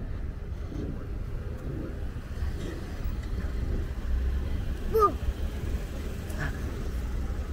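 Low, steady rumble of a car engine, growing louder about four seconds in, with a brief falling voice-like cry about five seconds in.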